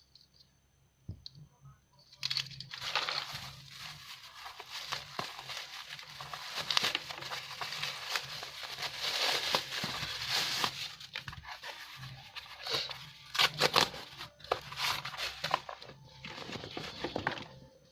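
Plastic packaging being torn open and crinkled, starting about two seconds in, with many sharp crackles throughout.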